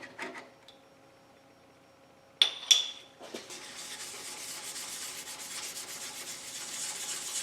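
Two sharp clicks, then an abrasive stone rubbing steadily on the planer's cast iron way, stoning out scratches and rust.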